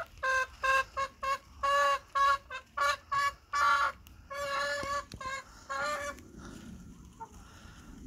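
Domestic hens calling: a run of short, evenly spaced clucks, about three a second, then several longer drawn-out calls, dying away after about six seconds.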